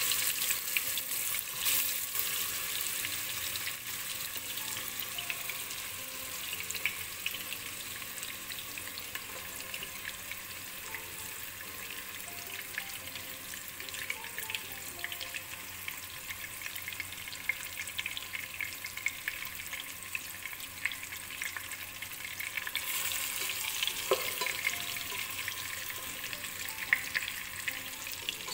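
Marinated chicken drumsticks sizzling and crackling as they fry in hot oil in a pot. The sizzle swells about three-quarters of the way through, and near the end a spatula stirs the pieces.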